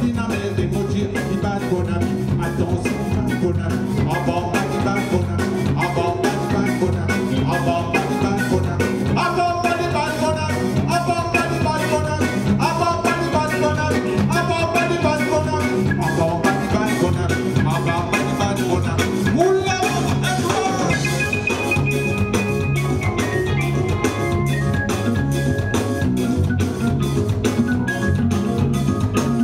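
Live band music with a steady drum-kit beat, bass and melodic instrument lines over it; Mauritian séga played at a sound check.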